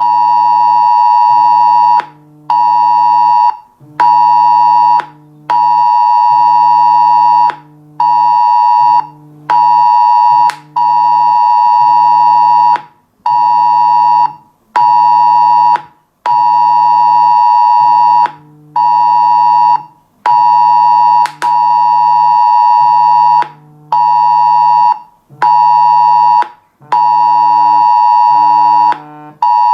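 Mobile phone emergency alert tone sounding for a test warning: a loud, shrill electronic beep in long and short pulses with brief gaps, repeating throughout. A lower buzzing tone pulses underneath in its own rhythm.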